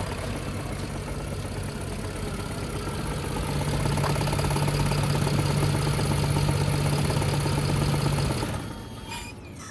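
BMW N53 3.0-litre straight-six of a 2011 528i idling with a misfire, the rough running that sounds like a diesel. It grows louder about three and a half seconds in and cuts off sharply about a second before the end.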